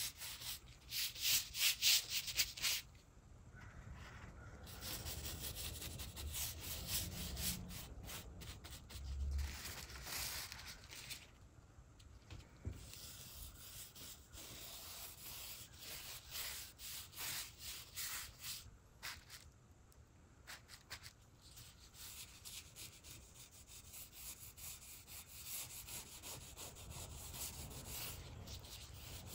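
Hand sanding of a wooden door: sandpaper rubbed back and forth in short, quick strokes, in spells with pauses between.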